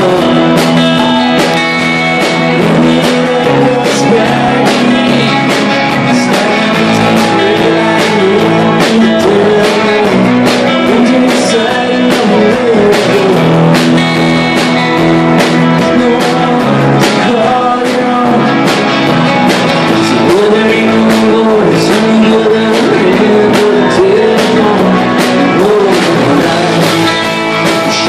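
Live rock band playing a song with electric guitars, bass guitar and drums.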